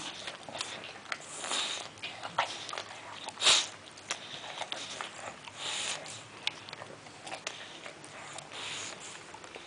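English bulldog licking its nose and snuffling, with wet licks, smacks and sniffs at irregular intervals, the loudest about three and a half seconds in. The dog is licking at moisturiser just rubbed onto its nose.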